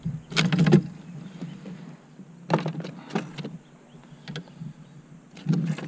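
Short bouts of clattering and knocking on a plastic kayak hull as an angler handles gear and a landed fish in his lap. The bouts come about half a second in, again around the middle, and near the end, with a single tick in between.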